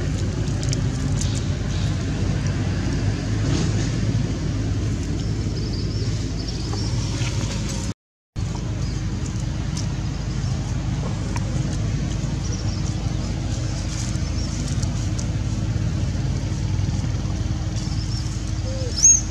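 Steady low rumble of outdoor background noise, like wind on the microphone or distant traffic, with faint scattered ticks; it cuts out briefly about eight seconds in, and a short sharp call sounds near the end.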